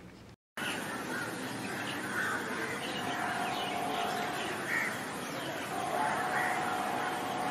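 Birds calling over a steady outdoor background, starting just after a brief moment of total silence.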